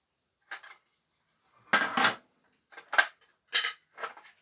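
Handling clatter of a restaurant pager's circuit board and plastic case parts: about five short rattling knocks, the loudest a little under two seconds in.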